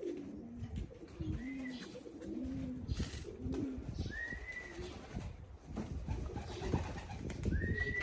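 Racing pigeons cooing, a string of low rolling coos about once a second, with a thin high whistle-like tone heard three times, the last starting near the end and held.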